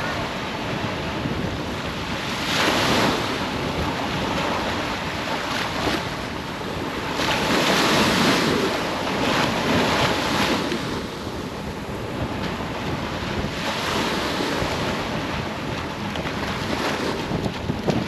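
Sea surf washing onto a beach, swelling and easing every few seconds, with wind buffeting the microphone.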